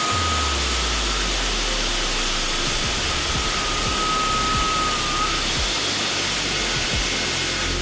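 iBELL CC40-38 concrete cutting machine, its 3800 W electric motor and 405 mm saw blade running steadily, with a faint high whine that comes and goes.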